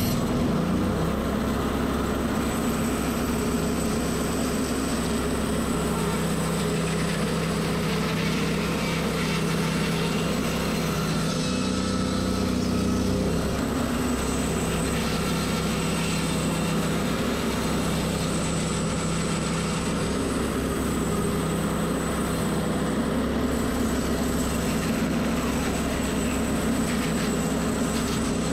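A Norwood portable band sawmill's gas engine revs up at the start, then runs steadily under load. Its band blade cuts crosswise through a bundle of upright log sections, slicing wood cookies.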